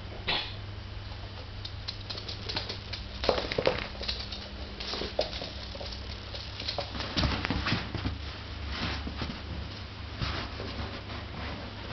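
Scottish Terrier puppy's claws pattering and scrabbling on a wooden laminate floor during play, heard as irregular clicks and taps, busiest a few seconds in and again past the middle.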